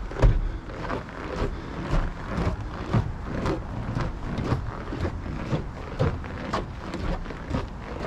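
Footsteps crunching on a snow-covered path, about two steps a second in a steady walking rhythm.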